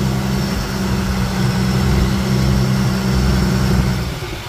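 Fishing boat's engine running steadily with a low, even drone; about four seconds in, its sound drops away and grows quieter.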